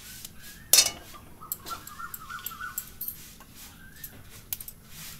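A single sharp metallic clank about a second in, a metal spatula knocking against the metal kadai, followed by a few lighter taps. Faint bird chirps are heard in the background.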